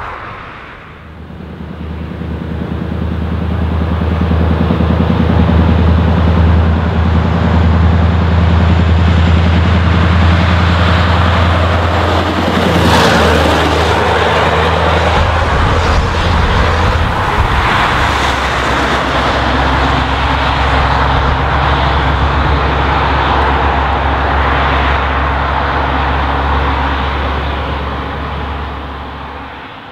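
Scania R500 truck's V8 diesel on straight pipes, a deep steady drone that grows louder as the truck approaches. It passes close about halfway through with a brief rush, and the engine note drops. The drone then fades as the truck pulls away near the end.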